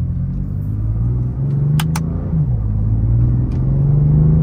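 BMW F80 M3's twin-turbo inline-six running under way, its pitch stepping up about a second and a half in, dropping sharply a little after two seconds, then stepping up again as gears are changed. A sharp double click, typical of the magnetic paddle shifter being pulled, comes just before the drop.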